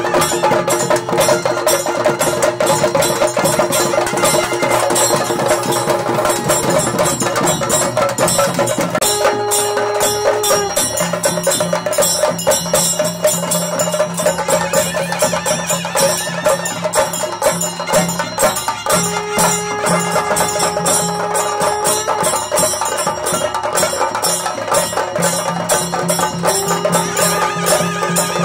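Traditional Theyyam ritual music: fast, dense drumming with metallic cymbal strikes, under a wind instrument holding long notes that step between a few pitches.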